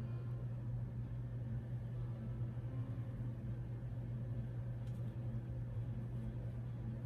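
Steady low hum, unchanging throughout, with a couple of faint light clicks about five seconds in.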